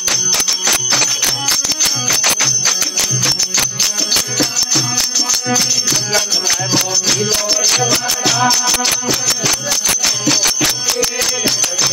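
Live devotional bhajan music: a drum beats a steady rhythm under rapid, continuous jingling clicks from hand percussion, with a harmonium and voices singing.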